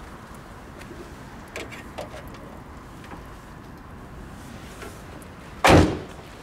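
Car door shutting with one solid thump about five and a half seconds in, after a couple of light clicks.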